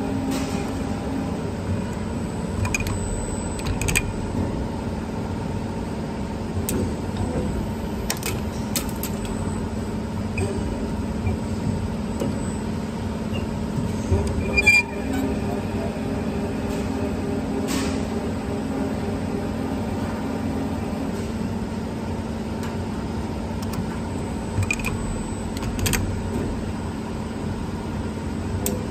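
CNC camless spring forming machine running, coiling heavy-gauge wire and bending the hooks of a double hook extension spring: a steady hum from its motors, broken by sharp clicks and knocks of the forming tools. The loudest knock comes about halfway through.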